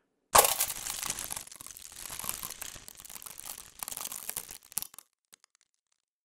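Synthesized crumpling of thin plastic and foil sheets: a sharp start about a third of a second in, then a dense run of crackling clicks that thins to a few scattered clicks and stops about five seconds in.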